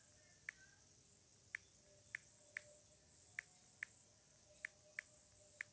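Key-press clicks from a tablet's on-screen keyboard as text is typed: about nine short, soft ticks at uneven spacing over a faint steady hiss.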